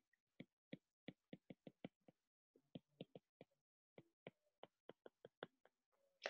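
Faint, irregular clicks and taps of a stylus tip on a tablet screen during handwriting. They come in short runs of several a second, with brief pauses between words.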